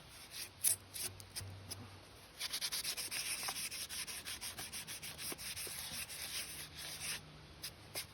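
Rapid rubbing or scrubbing strokes, about five a second, starting about two and a half seconds in and stopping about two seconds before the end, with a few scattered clicks before them.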